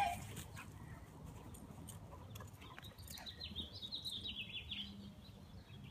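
A dog gives a short bark right at the start. About two and a half seconds in, a songbird sings a quick run of high chirps lasting a couple of seconds.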